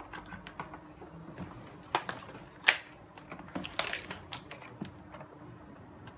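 Plastic clicks and knocks as a mesh strainer basket is fitted and handled at the fill opening of a plastic sprayer tank. A sharp knock about two and a half seconds in is the loudest, followed by a quick cluster of clicks.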